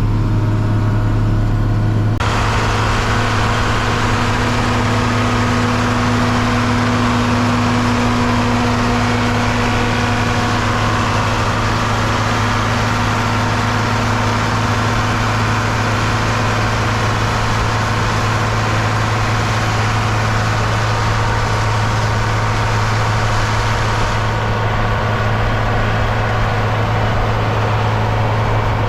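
John Deere 4230 tractor's six-cylinder diesel engine running steadily with a strong low hum, and a loud rushing mechanical noise over it that comes in sharply about two seconds in.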